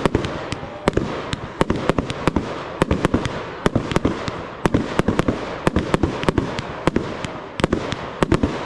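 Aerial firework shells bursting overhead in a rapid, unbroken string of sharp bangs, about three or four a second.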